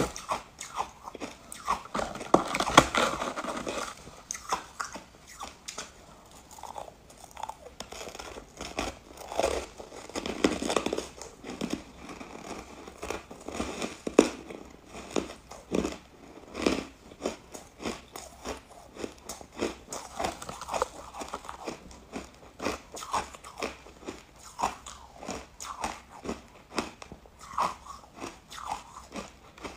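Someone biting and chewing frozen buckwheat-coated ice chunks: a constant run of sharp crunches and crackles, with louder bursts of crunching a few seconds in and again about ten seconds in.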